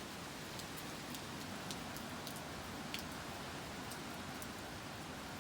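Steady hurricane rain falling, with scattered sharp drips.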